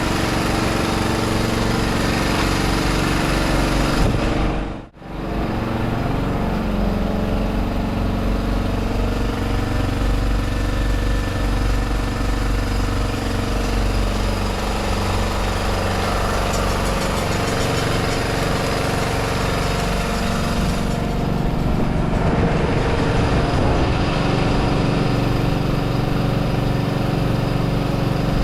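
A small engine running steadily, with a brief dropout about five seconds in.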